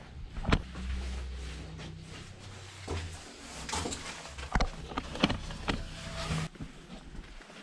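Heavy painted steel bunker door being handled: several sharp metal knocks and some scraping, over a low rumble that stops suddenly near the end.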